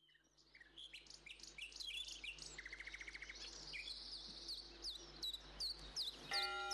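Several songbirds chirping and twittering at once, with a rapid trill in the middle. The birdsong fades in from silence. Near the end, steady held tones of music come in under the birds.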